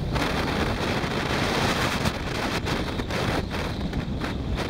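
Wind buffeting the microphone of a camera on a moving motorcycle: a loud, steady rush that jumps up right at the start and wavers with short dips in the second half.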